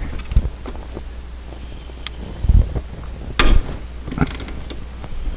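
A few scattered light knocks and clicks of handling over a steady low hum.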